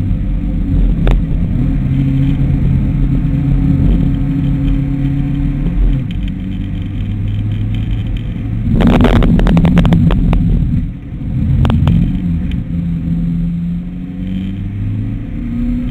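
Mitsubishi ASX engine and road noise heard from inside the cabin on a circuit lap, the engine note stepping up and down through gear changes. About nine seconds in comes a short burst of rattling clatter, then the engine briefly goes quieter.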